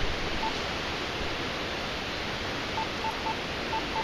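Steady hiss of rain, with short electronic beeps from a radio: one about half a second in, then a quick run of several near the end, just before a severe-weather warning is read out.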